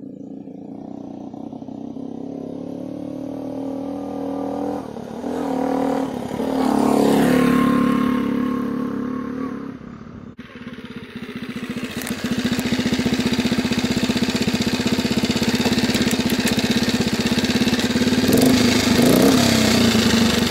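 1962 Honda C105T Trail 55's small single-cylinder four-stroke engine, running on a freshly rebuilt carburettor. The bike approaches and passes, its engine note growing louder to a peak about seven seconds in and then fading. After a cut, the engine runs close up with an even, rapid putter and a short change in pitch near the end.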